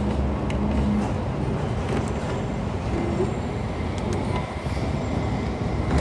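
Hong Kong double-decker tram running along its tracks, heard from inside the upper deck: a steady rumble of steel wheels on rail, with a low hum that fades about a second in and scattered rattling clicks.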